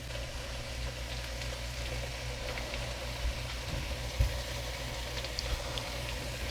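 Long beans (bodi) and tomato frying in oil in a pot, making a steady, even sizzle, with a soft knock about four seconds in.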